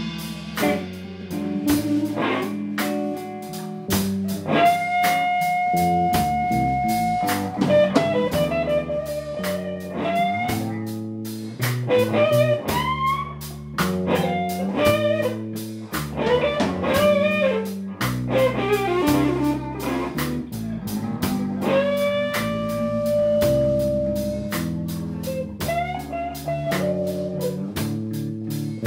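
Live blues band playing an instrumental passage: electric guitars over a drum kit, with a lead guitar holding a long note about five seconds in and again past twenty seconds.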